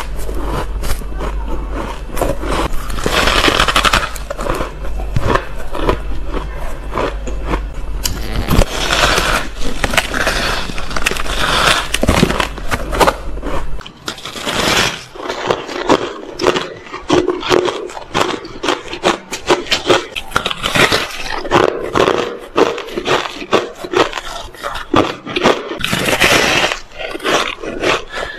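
Close-up biting and chewing of fluffy, dry frozen ice, a dense run of crisp crunching and crackling. A steady low hum runs under the first half and stops partway through.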